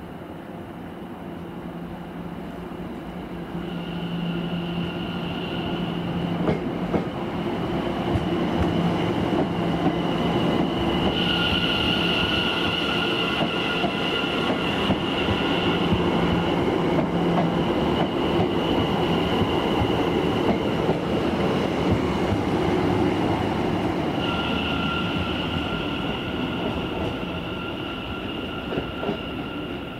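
Electric multiple-unit passenger train passing at steady speed. The motors give a steady high whine that comes and goes as the cars go by, over running wheel and rail noise. It builds over several seconds, stays loud for a long stretch, then fades.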